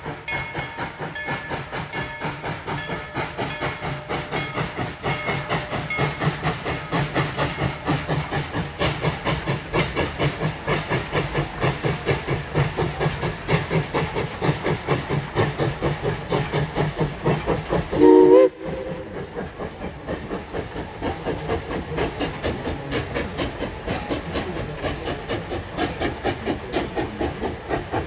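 Steam-hauled passenger train rolling across a wooden trestle, its wheels and coaches clattering in a steady rhythm of about two to three beats a second. About eighteen seconds in, the locomotive's steam whistle gives one short, loud blast.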